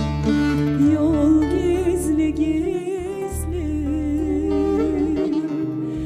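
A woman singing a slow melody live into a microphone, with a wavering vibrato, over instrumental accompaniment holding sustained low notes.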